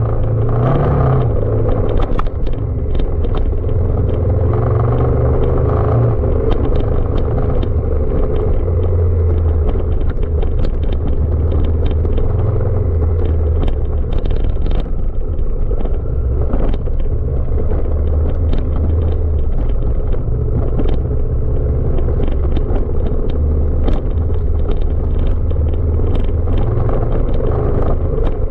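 Honda Africa Twin CRF1000's parallel-twin engine running under load on a rough off-road track, its low note stepping up and down as the speed changes. Frequent short knocks and clicks are heard over it.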